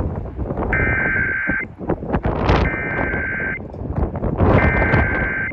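Three bursts of an EAS SAME digital header, a warbling two-tone data signal, each about a second long and about a second apart. Together they mark the start of an Emergency Alert System message. They sound over loud rumbling noise.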